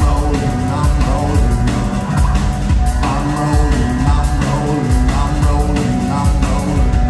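Rock band playing live, with a drum kit keeping a steady beat over a bass line that repeats about once a second.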